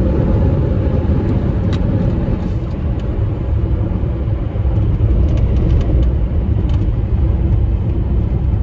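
Steady road and engine noise inside a Suzuki car's cabin while cruising on a highway: an even, continuous low rumble.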